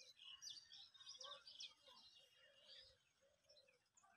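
Faint birdsong: many short, high chirping notes from small birds, busiest in the first two seconds and thinning out towards the end.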